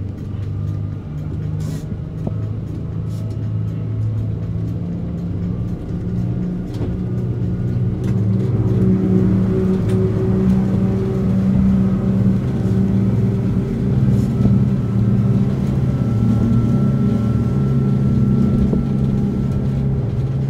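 Motor yacht's engines droning steadily under way, heard from inside the cabin, growing louder about eight seconds in as the boat picks up speed, with a rush of water and spray along the hull.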